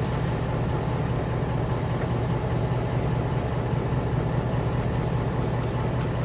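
MAN KAT1 truck's diesel engine idling steadily, a low even hum heard from inside the cab while the truck stands still.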